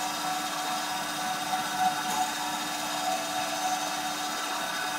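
Rockwell Model 14 band saw running with no load, a steady motor hum and blade whir.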